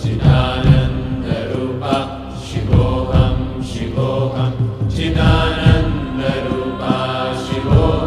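Devotional Sanskrit chanting set to music: a chanted vocal line over accompanying instruments, with drum strikes.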